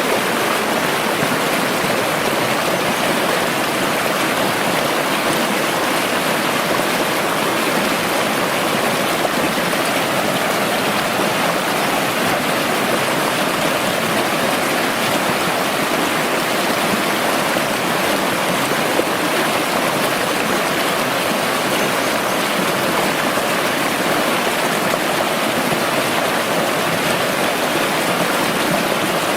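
Rushing stream water running steadily, an even, unbroken rush.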